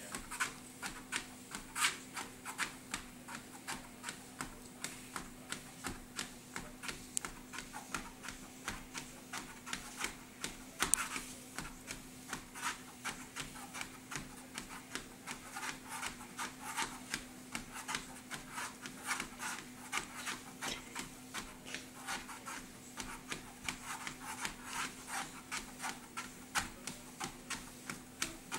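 Treadmill running with a steady motor hum, under a quick, even patter of a toddler's small footsteps on the moving belt, about two to three steps a second.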